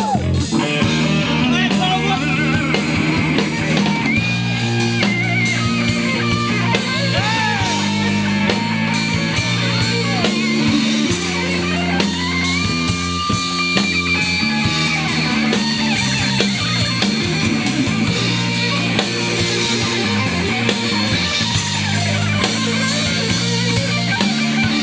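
Live rock band playing: electric guitar with bent, sustained notes over a bass line and a drum kit.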